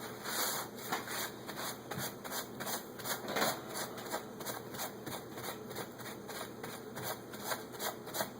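Hands rummaging through and handling small parts: a quick, irregular run of light clicks and rustles, several a second.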